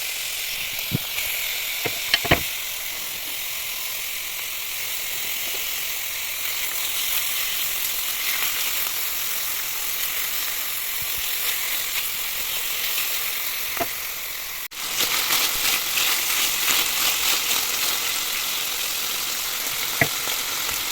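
Food frying in hot oil in a pan, a steady sizzle with a few light clicks of a utensil about two seconds in and again near fourteen seconds. After a brief break about fifteen seconds in, the sizzle is louder and more crackly.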